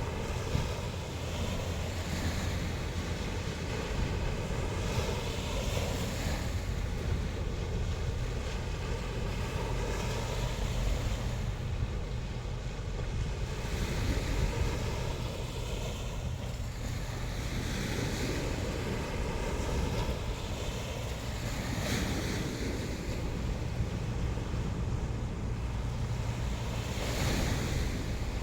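Sea waves breaking and washing up the shore in repeated surges every few seconds, over a steady low rumble of surf. Wind buffets the microphone throughout.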